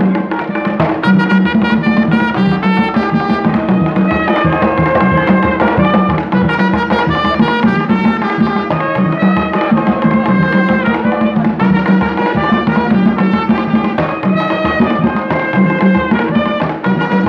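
Live band music: a trumpet playing a melody over a steady, driving beat of tall hand drums.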